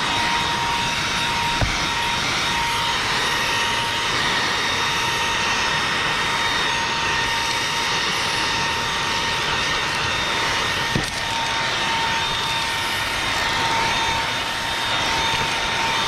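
Ecolumix cordless stick vacuum (19 kPa) running steadily with a high motor whine over rushing air, with a few light knocks from the brush head against surfaces.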